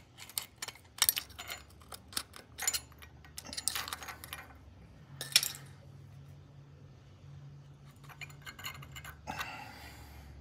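Light metallic clicks and clinks of a screwdriver working against the parts inside a Ford Bronco automatic 4x4 hub as a holed indexing ring is pried loose and lifted out. The clicking is busy in the first half, then thins to a few clinks and a short rustle of handling, over a faint low hum.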